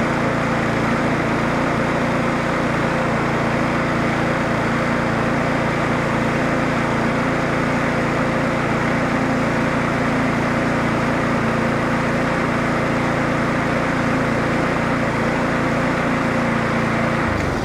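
Briggs & Stratton Classic single-cylinder four-stroke engine on a rotary push lawnmower running steadily at a constant speed, then cutting out abruptly near the end.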